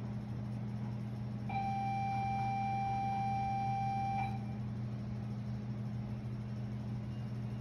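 A single electronic beep, one held tone nearly three seconds long that starts and stops abruptly about a second and a half in, over a steady low hum.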